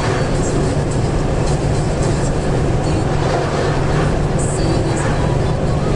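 Steady road noise from inside a vehicle cruising on a motorway: engine drone with a constant low hum under the rush of tyres on asphalt.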